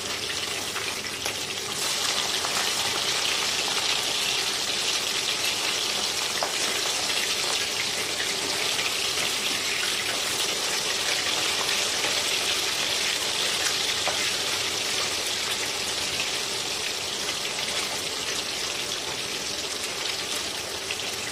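Turmeric-marinated pomfret fish pieces sizzling steadily as they fry in hot oil in a pan. The sizzle grows louder about two seconds in.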